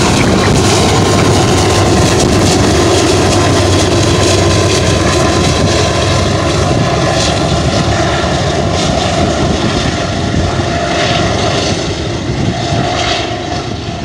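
BNSF double-stack intermodal freight train passing close by: the diesel drone of the lead GE ET44C4 and trailing Dash-9 locomotives, heaviest in the first few seconds and easing as they move away, under the steady rolling noise of the well cars' wheels on the rail.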